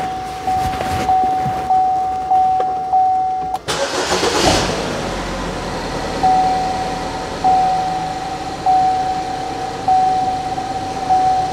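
A car's warning chime sounds repeatedly, a single tone about every 0.6 s. About three and a half seconds in, the 2012 Buick Verano's engine cranks and catches in a short rush. It then runs steadily while the chime carries on at about half the rate.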